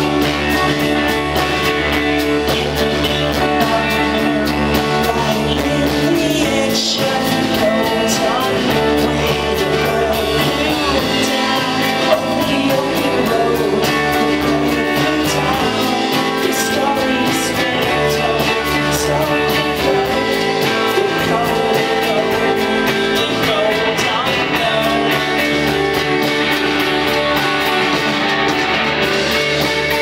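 Rock band playing live: electric guitar, bass guitar and drums, with sung vocals over them.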